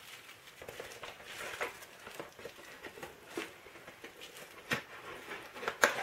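Plastic shrink wrap crinkling as fingers pick at it on a cardboard box, with small crackles and taps of the box being handled. There are two sharper clicks near the end.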